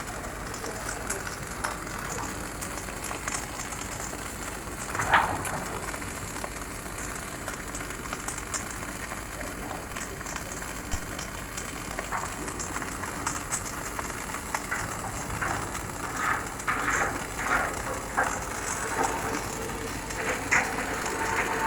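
Robotic arc welding running a straight fillet weld: a steady hiss with many small clicks and pops, a louder pop about five seconds in and a busier run of pops in the last few seconds.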